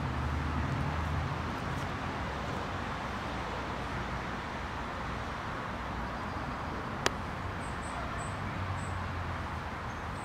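Steady outdoor background hiss over a low rumble, broken by one sharp click about seven seconds in, with a few faint high chirps just after it.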